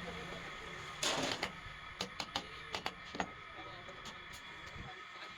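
A short hiss about a second in, then several sharp clicks and taps, like tools or metal parts being handled, over a steady faint hum.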